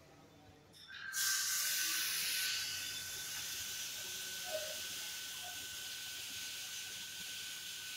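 High-pressure water jets of an automatic jet-wash gantry starting up about a second in with a sudden loud hiss, then spraying steadily with a thin high whine running under the hiss.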